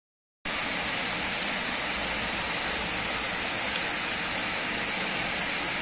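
Heavy rain pouring down, a steady dense hiss with a few faint ticks of drops. It starts suddenly about half a second in.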